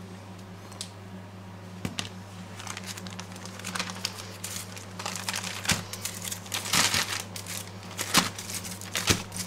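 A plastic zip-lock freezer bag being opened and foil-wrapped cubes slid into it: irregular crinkling of plastic and aluminium foil, sparse at first and busier from about two seconds in.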